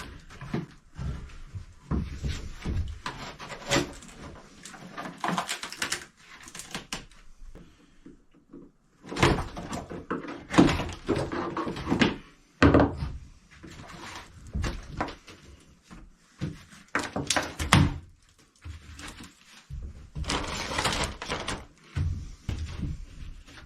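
Galley counter demolition inside a wooden boat: irregular knocks, thuds and clatter as layers of laminate and old counter material are pried and broken off, with brief pauses a few times.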